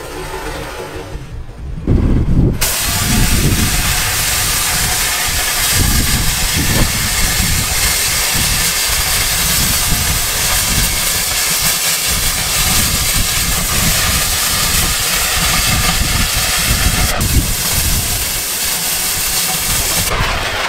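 Oxy-fuel cutting torch hissing steadily as it cuts into steel pipe, starting sharply about two seconds in.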